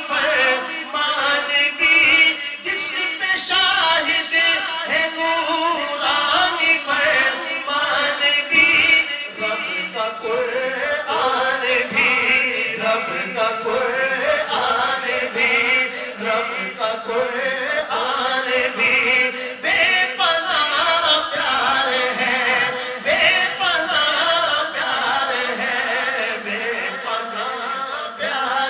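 Men's voices chanting an Urdu devotional manqabat: a lead voice sings over backing voices holding a steady low note.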